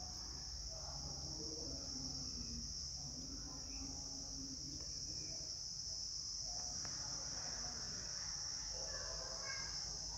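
Steady high-pitched chirring of crickets, unbroken throughout, with faint distant voices underneath.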